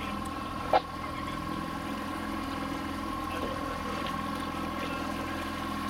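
Outboard motor running steadily, with a steady high tone above its hum. A single sharp knock a little under a second in.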